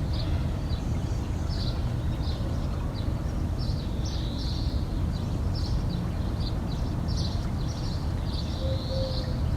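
Small birds chirping in many short, high notes throughout, over a steady low rumble.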